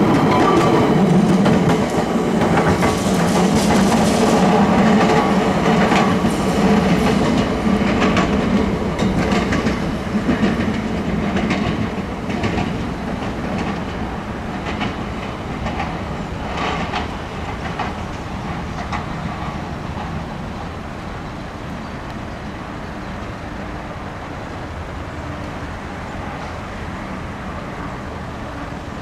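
Melbourne SW6 W class tram running past close by on steel rails, with a low running rumble and scattered clicks from the wheels over the track. The sound fades steadily as the tram moves away down the line.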